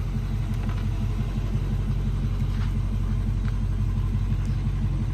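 2021 Dodge Charger Scat Pack's 6.4-litre HEMI V8 running steadily with an even low pulse.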